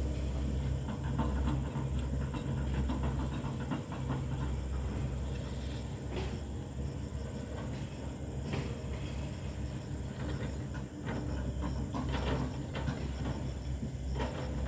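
Hitachi excavator's diesel engine running steadily under load, with scattered knocks and cracks as the machine chops up old oil palm trunks.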